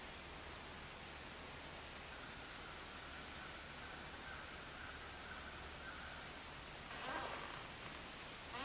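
Quiet room ambience: a steady low hiss with faint high chirps about once a second, and a brief louder sound about seven seconds in.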